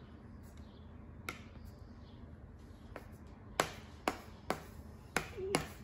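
Small plastic toy stamp tapped onto paper on a table again and again: about seven sharp taps, coming faster in the second half, the loudest about three and a half seconds in.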